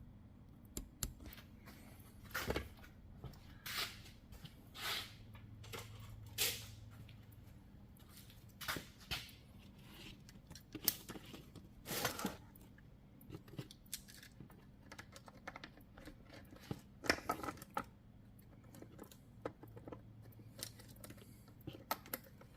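Scattered small clicks, knocks and scrapes of metal parts being handled while the guide bar and chain are fitted onto a Stihl MS460 chainsaw.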